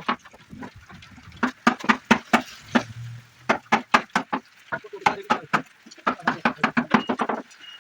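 Rapid series of sharp knocks from a hammer or mallet striking wood, coming in runs of several blows a second with short pauses between runs.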